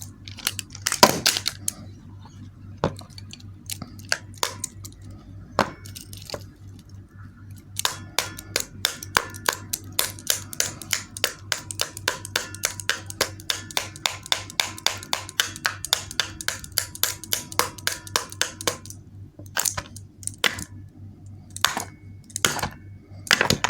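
Scattered clicks and knocks of something being handled, then about eleven seconds of rapid, even clicking, several clicks a second, from a small mechanism, stopping abruptly before a few more knocks near the end.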